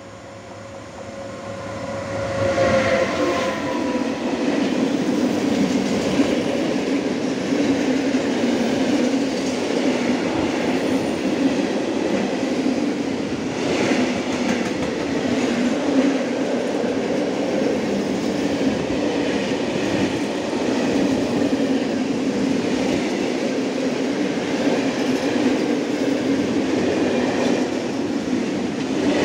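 Electric locomotive 111ED approaches and passes, its pitch falling as it goes by about two to three seconds in, followed by a long freight train of open coal wagons rolling steadily past, wheels clicking over the rail joints.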